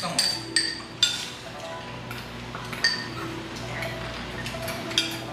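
Metal spoons and chopsticks clinking against stainless-steel rice bowls and ceramic dishes as people eat. There are a handful of sharp clinks, each with a short ring.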